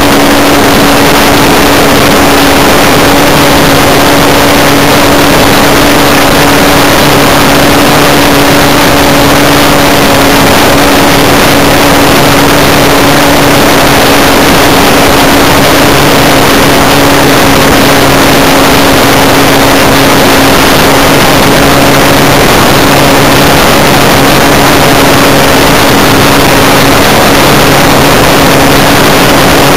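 Magnum .91 four-stroke glow engine on a 1/4-scale RC Spacewalker running steadily in flight, heard loud and close from on board the airframe, with a constant rush of air and propeller noise.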